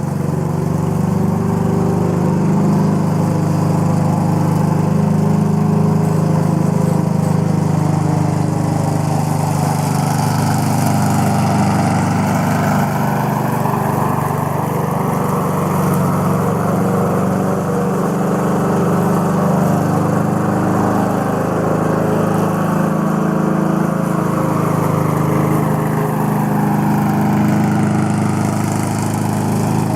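1986 Craftsman Eager One 4.0 hp lawn mower engine running steadily at an even speed, its carburetor freshly overhauled.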